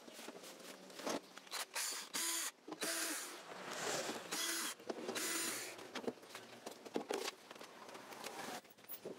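Sheet-metal cabinet of a mini home theater being taken apart: screws undone and the metal cover handled and slid off, giving irregular scraping, rattling and sharp clicks and knocks.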